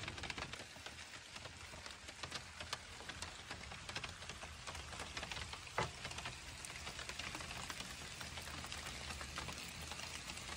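Rain pattering on the roof of a truck-bed camper shell, heard from inside as a dense, even patter of drops. One louder click comes about six seconds in.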